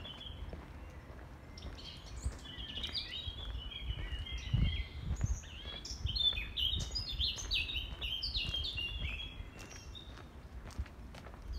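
A songbird singing a long run of quick, varied chirping and warbling notes, over a low rumble with a dull thump about four and a half seconds in.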